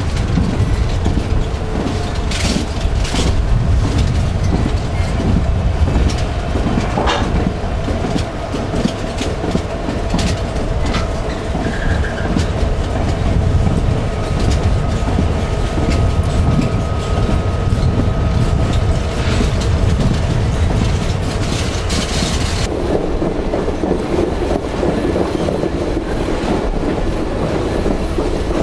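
Alaska Railroad passenger train running on the track: a steady rumble of wheels on rail with scattered clicks and clacks over rail joints, and a faint thin wheel squeal through the first half. Near the end the sound turns duller and heavier.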